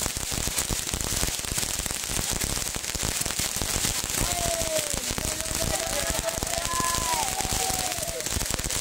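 Fireworks crackling steadily, a dense spray of tiny pops and sizzles from a handheld tube shooting coloured balls and sparks. Faint tones glide up and down about halfway through.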